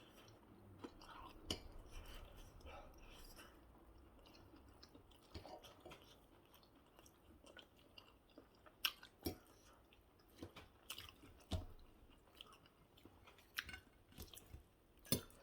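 Quiet chewing of fried plantain and egg, with scattered soft clicks and taps, the sharpest a few at a time near the middle and end.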